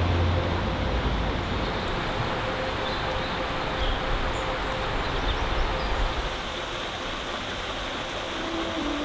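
A steady rushing noise of outdoor ambience, even and without rhythm, with a few faint high chirps about four to six seconds in.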